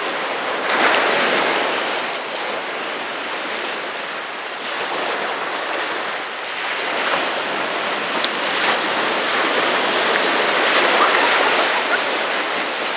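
Pacific Ocean surf breaking and washing up the beach: a steady rush of water that swells and eases, loudest about a second in and again near the end.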